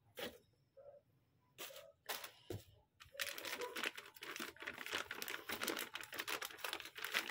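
Clear plastic bag crinkling as it is pulled off a boxed effects pedal: a few separate crackles at first, then continuous crackling from about three seconds in.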